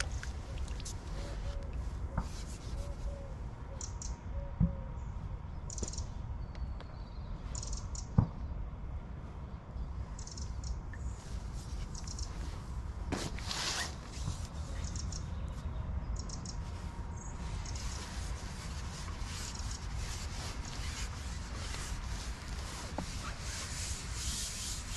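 Outdoor ambience: a steady low rumble with scattered faint high bird chirps and a few short arched calls near the start. Two sharp knocks come about four and a half and eight seconds in.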